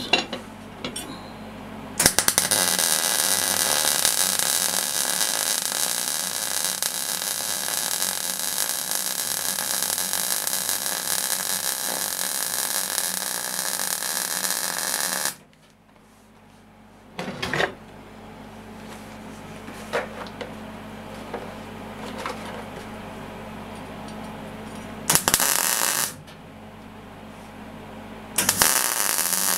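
Wire-feed (MIG) welding arc crackling steadily through a weld bead of about thirteen seconds, then stopping. A low hum with a few clicks follows, a one-second tack weld comes about 25 seconds in, and the arc strikes again near the end.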